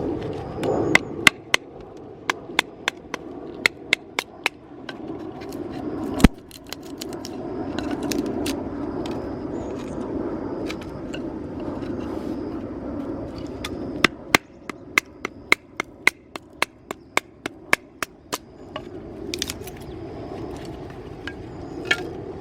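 Repeated sharp knocks struck in quick runs, two or three a second, with one heavier blow about six seconds in.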